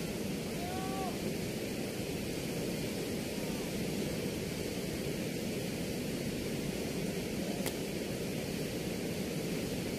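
Water rushing steadily through a weir's sluice gate, a constant even rush with no rhythm.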